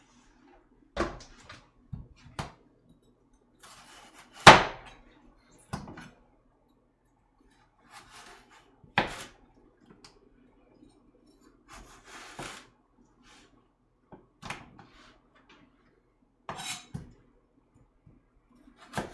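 Kitchen knife cutting a Korean radish on a plastic cutting board: irregular knocks of the blade on the board, a second or several apart, with short rasping cuts between them. The loudest knock comes about four and a half seconds in.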